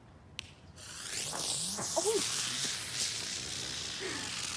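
A short click, then, starting about a second in, a ground firework fizzing loudly as it sprays sparks across the pavement, a steady hiss with a wavering swish.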